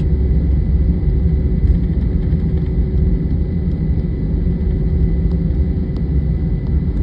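Jet airliner cabin noise: a steady low rumble from the running engines, with a thin steady whine over it.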